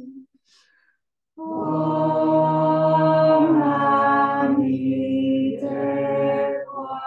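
A man's and a woman's voices chanting a Buddhist chant together in long held notes. After a pause for breath of about a second, one long sustained phrase follows, its pitch shifting partway through, with a brief break near the end.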